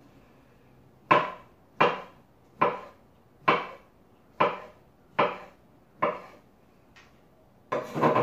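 Sharp kitchen knife chopping boiled beetroot on a wooden cutting board: a steady series of about eight cuts, a little under one a second, each ending in a knock of the blade on the board.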